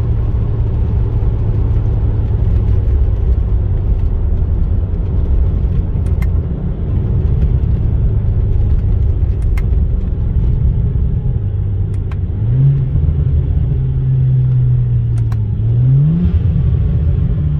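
BMW 335i's turbocharged straight-six running at moderate revs under a steady low rumble. Twice in the second half its pitch climbs quickly and then slowly eases back down.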